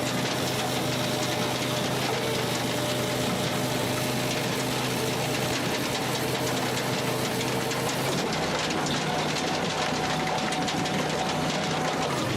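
Firewood processor running: a steady engine hum under a constant fine clatter of the machinery, the low tone shifting about eight seconds in.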